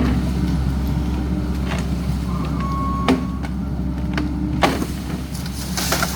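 Excavator's diesel engine running steadily, with several sharp knocks and cracks over it and a brief high squeal near the middle.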